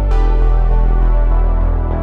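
Electronic background music with synthesizer tones and a steady beat, a new section starting with a crash at the beginning.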